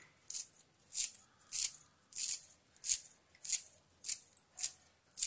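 Kitchen scissors snipping fresh coriander leaves into a bowl of batter: a steady run of about nine crisp, high-pitched snips, roughly one every 0.6 seconds.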